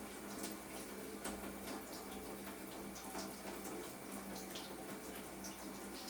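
Water running and spattering, with many small scattered drip-like ticks, from a plumbing fitting that is working but not yet tight enough to seal. A steady low hum runs underneath.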